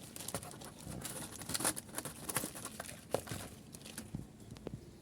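Plastic parts and packaging being handled: irregular crinkling with scattered light clicks and taps, busiest about a second to two and a half seconds in.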